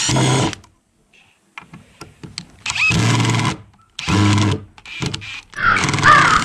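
Two cordless impact drivers, an Aldi Workzone 20V and a second brand, driving long wood screws into a hardwood plank at the same time, hammering in several short bursts with brief pauses between trigger pulls.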